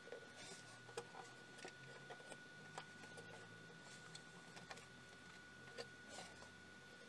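Faint, irregular small clicks and rustles of fingers handling and pushing wires inside a metal chassis, over a faint steady high-pitched whine.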